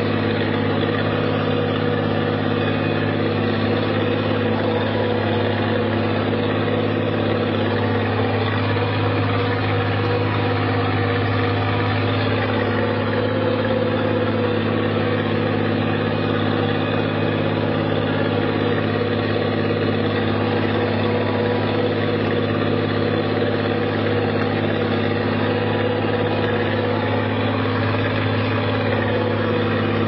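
Tractor diesel engine running at a steady, unchanging speed, heard from inside its cab.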